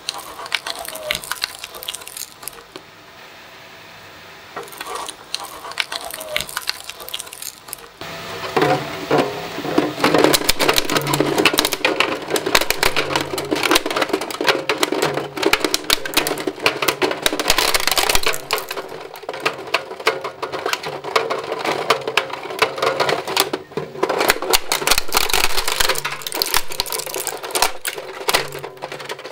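Twin-shaft shredder's steel cutters tearing up toys over a steady motor hum. At first there is lighter crackling as a plush toy goes through. From about eight seconds in, loud, dense cracking and snapping as the plastic of a toy kitchen playset is crushed and broken apart.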